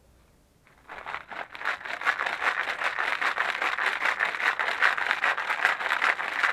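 Water sloshing back and forth inside a plastic coolant overflow reservoir shaken hard by hand, several strokes a second. It starts about a second in. The tank is being rinsed to loosen sludge deposits.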